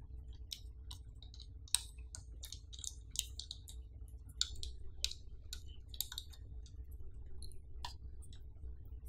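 Hands handling a BEIKE QZSD-999H tripod pan head, making a scattered run of light clicks and taps as its parts are moved, the sharpest a little under two seconds in.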